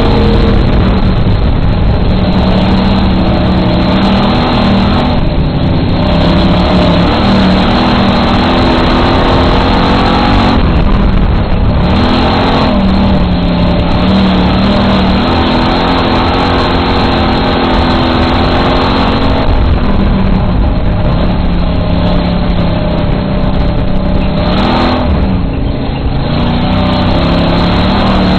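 Dirt-track race car engine at racing speed, heard loudly from inside the cockpit. Its pitch dips briefly and climbs again every several seconds as the car comes off the throttle and accelerates again around the oval.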